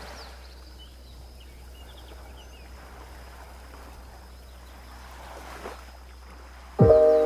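Calm sea waves washing on a beach, a soft steady wash with one wave swelling briefly about five and a half seconds in, and faint bird chirps early on. Chime-like music tones come back near the end.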